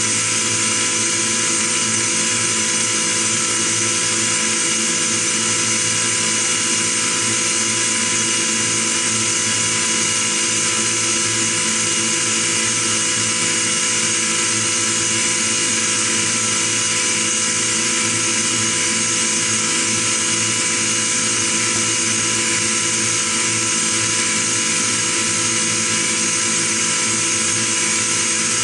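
CNC milling machine running steadily: the spindle whines while an endmill cuts a metal block, a constant machine drone made of several fixed high tones.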